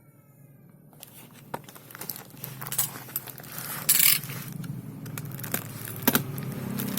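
Unboxing packaging being handled: plastic and cardboard rustling and crinkling with scattered clicks and knocks, starting about a second in, with a louder rustle about four seconds in.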